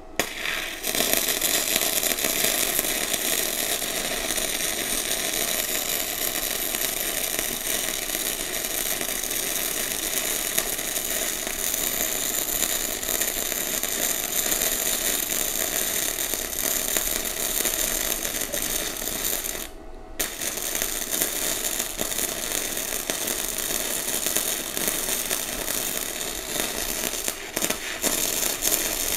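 Sasuke MIG welder running in gasless mode, its arc crackling and sputtering steadily as one continuous weld bead is laid. The arc cuts out for about half a second about two-thirds of the way through, then strikes again and carries on.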